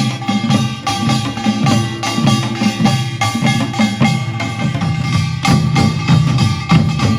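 Korean pungmul percussion band playing a procession rhythm: fast, dense strikes of gongs and drums with ringing metallic tones over them.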